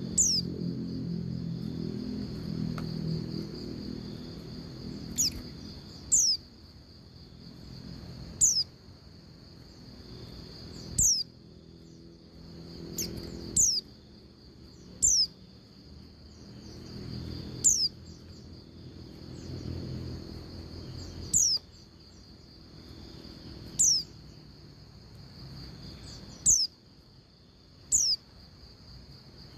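Female white-eye (pleci) calling: short, high, thin calls that slide down in pitch, one every one to three seconds and sometimes two in quick succession, over a steady high hum.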